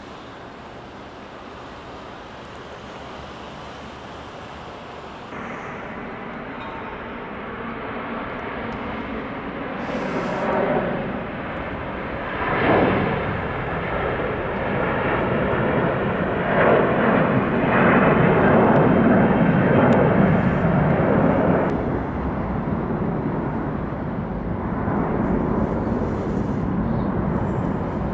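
Airbus A330-323's two Pratt & Whitney PW4168A turbofan engines at takeoff thrust, a broad rushing jet noise as the airliner rolls and climbs out. It grows louder from about five seconds in and is loudest a little past the middle.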